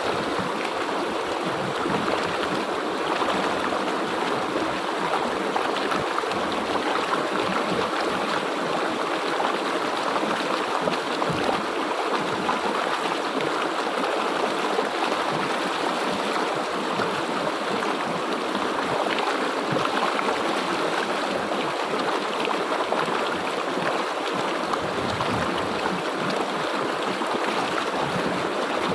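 A river or stream flowing and gurgling, a steady rush of water over rocks.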